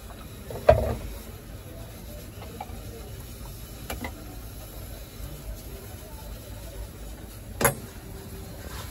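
Quiet food-preparation handling at a wooden counter, with a few sharp knocks: a loud one about a second in, a small one midway, and another near the end.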